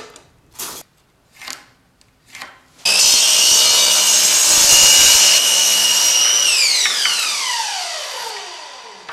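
A few light knocks as a board is handled. Then an electric miter saw starts with a sudden high whine and cuts through the wood. Once released, its whine falls steadily over about two and a half seconds as the blade spins down.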